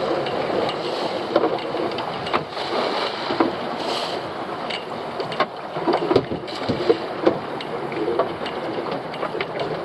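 Sounds aboard a small fishing boat at sea: a steady wash of noise with irregular knocks and clatter.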